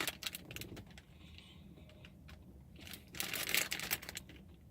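Light scattered clicks and taps, with a brief rustle about three seconds in: small things being handled close to the microphone.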